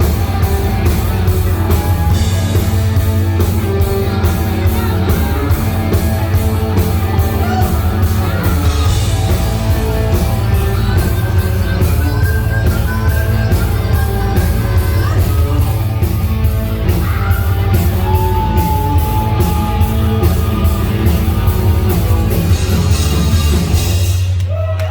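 Live hard rock band playing loud, with a steady drum beat, electric guitars and singing; the song stops just before the end.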